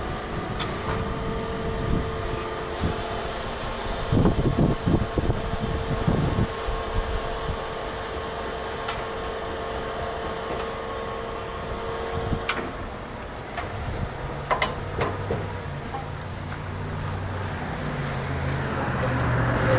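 Car-hauler truck running, a steady mechanical hum with a steady whine that cuts off about twelve seconds in, then a lower drone. Gusts of wind buffet the microphone a few seconds in.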